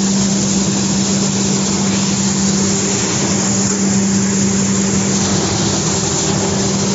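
5XZ-6 gravity separator running while cleaning coffee beans: a steady low hum under a constant rushing noise, unchanging throughout.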